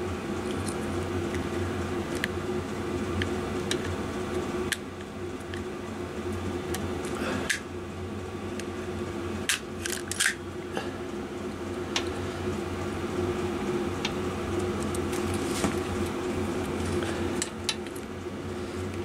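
Wire strippers and cutters clicking and snipping at insulated electrical wire in short sharp strokes, a few together about halfway through, over a steady low hum.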